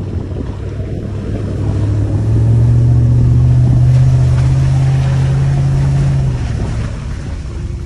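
Hummer H2's V8 engine heard from inside the cabin as the SUV drives off-road. The engine note swells about two seconds in as it accelerates, holds for about four seconds, then eases off near the end.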